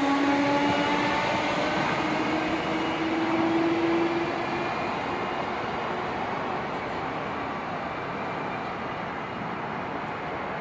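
Merseyrail electric multiple unit accelerating, its traction motors whining with a slowly rising pitch over the running noise of the train. The whine fades out about four to five seconds in, and the running noise slowly dies away as the train recedes.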